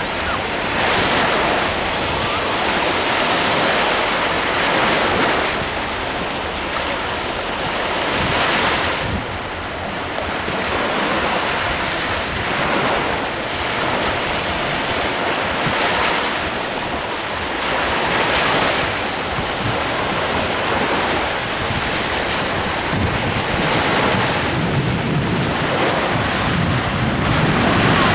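Small sea waves breaking and washing up a sandy beach, the surf swelling and easing every few seconds, with wind rumbling on the microphone.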